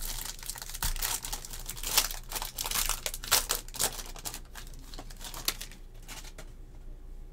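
Foil trading-card pack wrapper being torn and crinkled by hand, a dense crackling that dies down about six seconds in.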